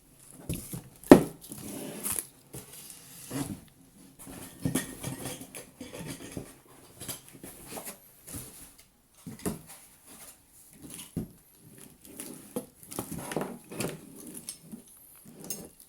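Parts of an Ender 3 Pro 3D printer kit being handled and set down: irregular clinks, knocks and clatter of metal and plastic pieces, with one sharp knock about a second in.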